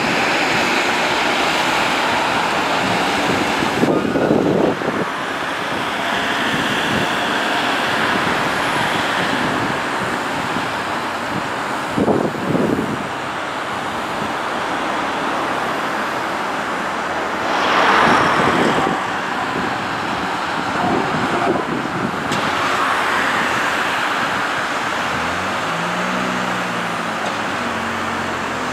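Steady outdoor traffic noise with wind, swelling a few times as vehicles pass. A low humming tone that wavers in pitch joins near the end.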